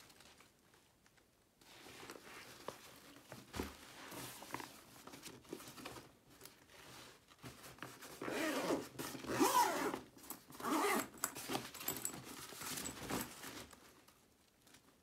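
Zipper of an Under Armour Undeniable 5.0 duffel bag's main compartment being pulled shut in several drawn-out zipping strokes, loudest in the second half. Before that there is quieter fabric rustling and handling with a few small clicks.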